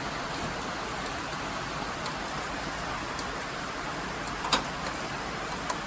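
Heavy rain falling steadily, with a few scattered sharp taps, the loudest about four and a half seconds in.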